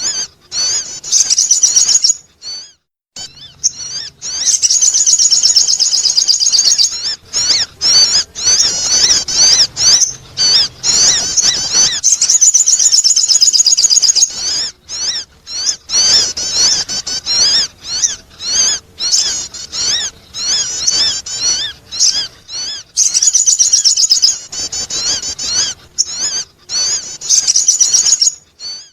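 Sogon bird song used as a lure call: rapid, high-pitched chirping trills in bursts of a few seconds, broken by short sudden gaps.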